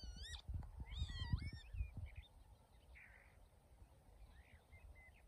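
Northern lapwings (peewits) calling: a series of swooping calls that rise and fall in pitch, the strongest in the first two seconds and fainter ones after.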